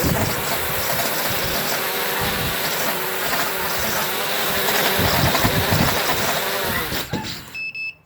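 FPV quadcopter motors whining at high speed, their pitch wavering up and down, as the quad shakes violently on a new flight controller, which the owner suspects may point to a bad motor. The motors cut out about seven seconds in, followed by a short electronic beep.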